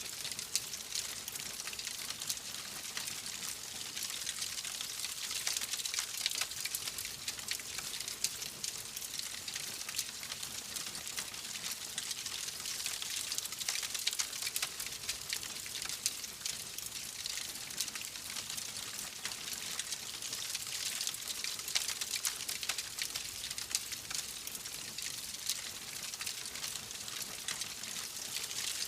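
Fire crackling in a fireplace: a steady hiss thick with small, quick pops and snaps.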